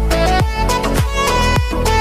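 Background music with a steady dance beat and a bowed-string or synth melody.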